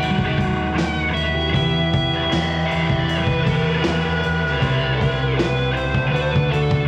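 Rock band playing an instrumental passage live: overdriven electric guitars, one a Telecaster-style guitar picked in quick strokes, over bass guitar and drums keeping a steady beat.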